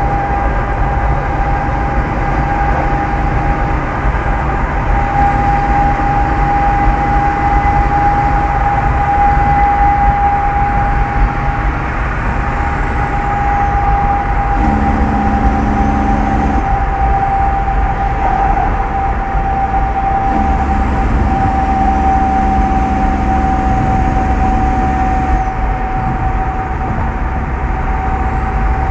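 Heavy diesel trucks running on a highway, a loud steady noise of engines and tyres. A steady high whistle runs throughout, and a deeper engine note comes in twice in the second half.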